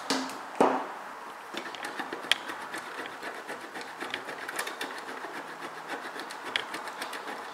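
Hard Parmesan cheese being grated on a stainless steel box grater: a quick run of rasping strokes, with a sharp tap about two seconds in.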